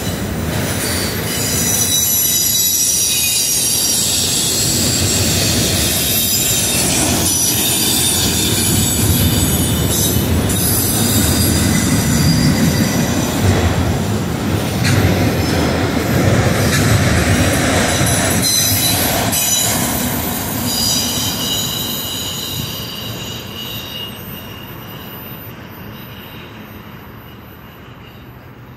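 Train cars rolling past with their wheels squealing in several high, steady tones over the rumble, with occasional clacks. The sound fades away over the last several seconds as the train moves off.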